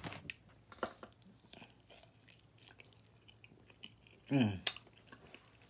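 A man chewing a mouthful of barbecue-sauced pork rib, with small wet clicks and lip smacks. About four seconds in comes a short low hum that falls in pitch, the loudest sound here, followed at once by a sharp smack.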